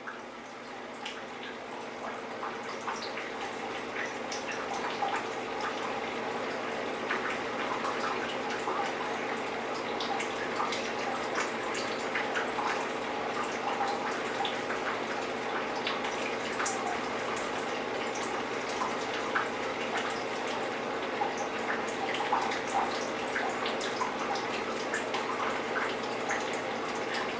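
Water running steadily, as from a tap or shower, with irregular drips and small clicks. It swells over the first few seconds, then stays level.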